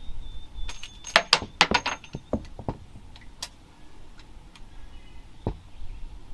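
Quick run of metallic clicks and clinks from a .357 Magnum snub-nose revolver being handled between strings of fire, with one sharper click near the end.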